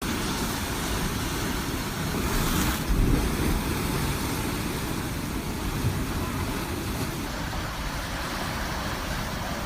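Ocean surf breaking on the shore, a steady wash of noise with a deep rumble and one louder surge about two and a half seconds in.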